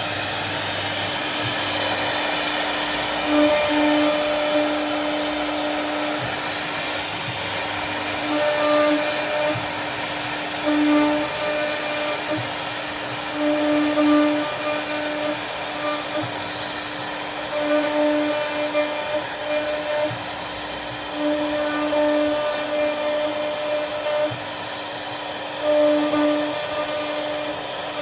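CNC router spindle running steadily with a whine, carving a wooden door panel; the tone swells louder every few seconds as the bit works through the wood.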